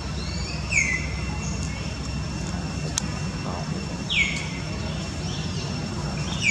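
Short, high, downward-sweeping animal calls, repeated every couple of seconds over a steady low hum.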